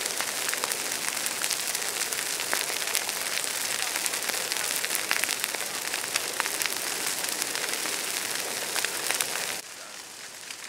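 Wildfire burning through dry grass and brush: a dense crackling hiss full of sharp pops. Near the end it drops suddenly to a quieter crackle.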